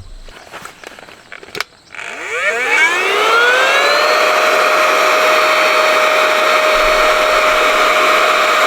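A small electric motor, such as a battery blower or air pump, switched on about two seconds in: its whine rises for about two seconds, then holds steady with a rushing of air. Light handling clicks come before it starts.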